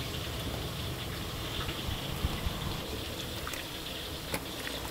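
Steady hiss and bubbling of a large pan of curry simmering on a kitchen stove, with a few light metal clicks.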